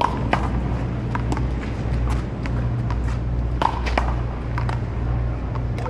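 A paddleball rally: a ball being struck by paddles and bouncing, heard as about a dozen sharp, irregular knocks, the loudest at the very start and about three and a half seconds in. A steady low rumble runs underneath.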